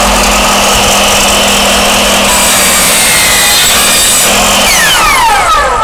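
Electric compound miter saw running at full speed as its blade cuts through a clamped wooden strip. About five seconds in it is switched off and winds down in a falling whine.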